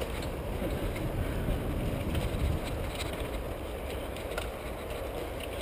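Steady rumble and rattle of a mountain bike rolling over a dirt forest trail, with wind on the microphone.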